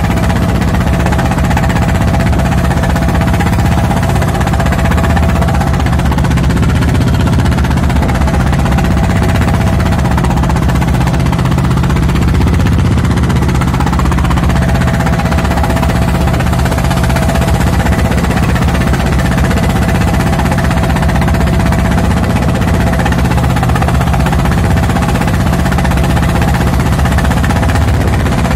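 Fishing boat's engine running steadily with a fast, even knocking beat.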